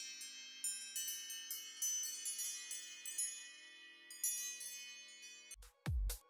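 iOS 7 'Chimes' ringtone (German 'Windspiel') playing: an irregular cascade of high, ringing wind-chime tones, each struck and fading out. Near the end it cuts off and electronic dance music with a heavy kick drum comes in.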